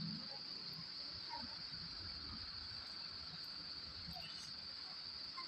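Steady high-pitched insect trill.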